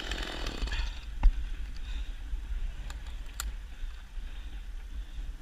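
Chainsaw running, dying away about a second in, followed by a single sharp knock and then a few faint clicks over a low steady rumble.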